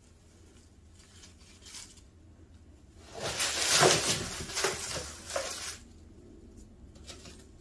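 Artificial leaves on a cat tree rustling and crackling as a cat climbs up through the branches. It is a loud, noisy burst of a few seconds, starting about three seconds in.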